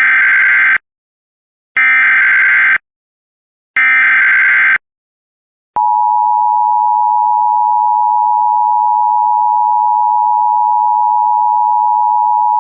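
Emergency Alert System tornado-warning opening: three one-second bursts of the digital SAME header data, a second apart. About six seconds in, a single steady attention tone starts and holds.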